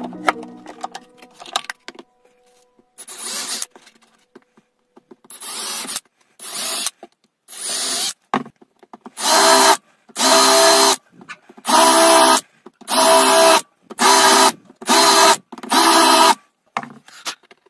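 Cordless drill run into wood in short bursts. A few brief, quieter bursts come first, then seven louder runs of about a second each, the motor whining steadily under load.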